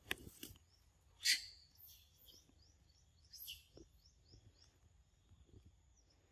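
Forest birds chirping: a run of short, quick falling chirps over a steady high insect drone. About a second in comes one brief, louder rasp, with a smaller one in the middle, and a few soft clicks near the start.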